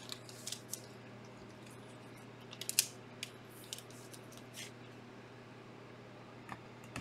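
Faint clicks and rustles of trading cards and plastic card holders being handled, loudest in a short cluster about three seconds in, over a steady low hum.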